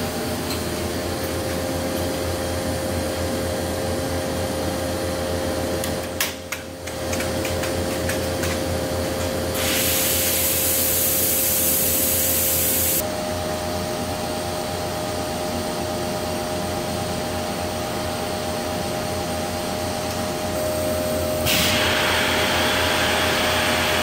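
Industrial thermoforming (vacuum forming) machine running with a steady hum and a steady whine. A loud rush of air hiss comes in about ten seconds in and stops suddenly three seconds later, and a second hiss starts about twenty-one seconds in.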